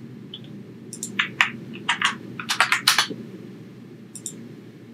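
Computer keyboard being typed on: a quick run of sharp key clicks, then a few more about four seconds in, over a steady low hum.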